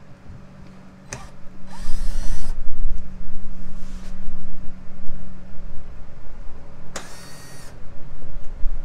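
Black+Decker cordless drill-driver with a T25 Torx bit running in two short bursts about five seconds apart, backing out the under-tray screws, with a click about a second in and heavy low rumbling of handling around it.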